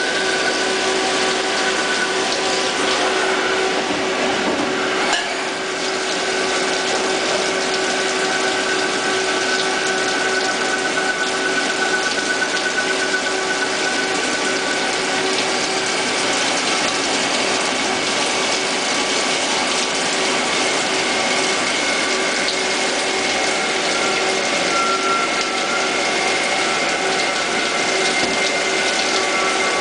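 Jenn Wei JW-21M CNC lathe cutting metal under a flood of coolant. It makes a steady mechanical whine with several held tones over a hiss of coolant spray and cutting. A brief dip with a click comes about five seconds in, and a higher whining tone joins about halfway.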